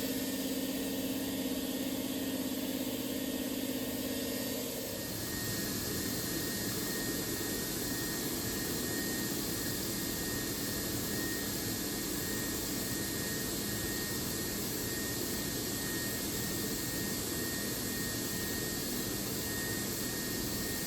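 Chevalier QP1620-L vertical machining center running with a steady mechanical hum. About five seconds in, a lower steady tone stops, leaving an even whirring hiss with a faint, evenly pulsing high tone.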